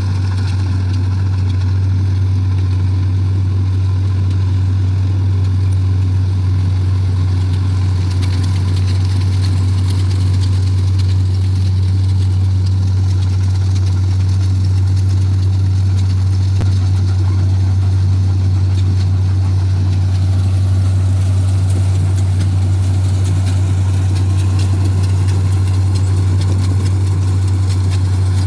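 Combine harvester engine running at a steady speed: a loud, constant low drone that does not change.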